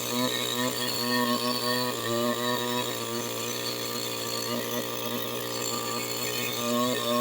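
Chainsaw engine running, its pitch rising and dipping repeatedly as it is worked through a cut in a tree.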